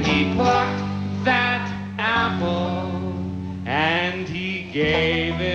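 Live performance of a children's counting song: voices singing long held notes over acoustic guitar, piano and band accompaniment.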